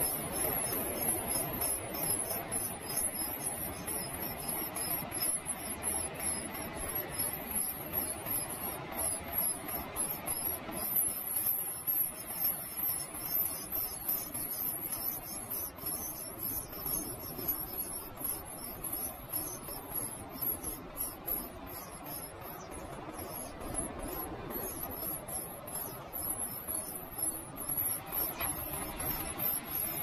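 Great tit nestlings begging in the nest: a continuous high-pitched chorus of rapid, overlapping cheeping calls.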